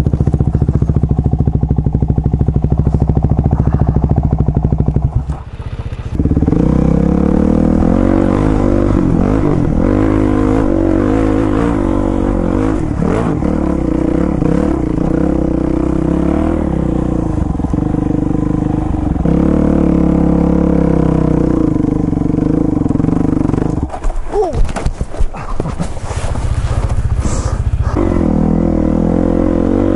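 Dirt bike engine running under way off-road, its revs rising and falling with the throttle. The engine note drops away briefly about five seconds in, and again around twenty-four seconds with some clattering.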